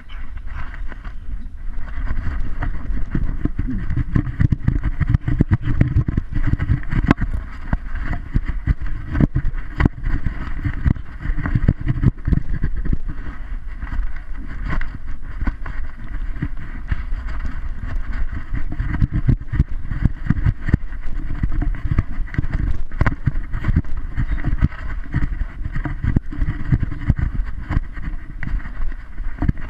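Rumbling, rubbing handling noise from a GoPro in its housing strapped to a walking dog's harness, with frequent small knocks as the dog moves.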